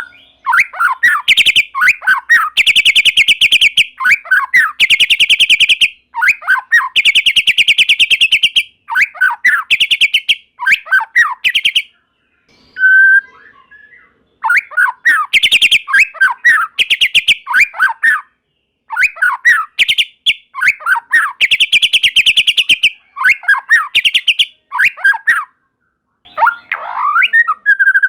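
White-rumped shama singing in rapid phrases: fast, buzzy rattling trills alternating with short downward-sweeping whistled notes, with brief pauses between phrases.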